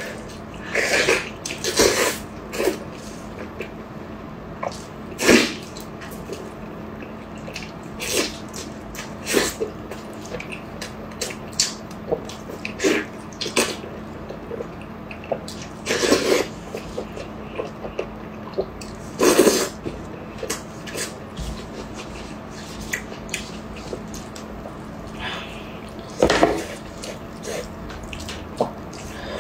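Close-up mukbang eating sounds: wet sucking, slurping and lip smacking on saucy lamb ribs, with bites and tearing of meat off the bone, coming as irregular short sharp bursts with several louder slurps among them.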